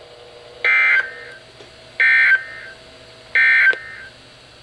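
NOAA Weather Radio SAME End-of-Message data code: three identical short bursts of harsh, buzzing digital tones about a second apart, each trailing off briefly, signalling the end of the severe thunderstorm warning broadcast.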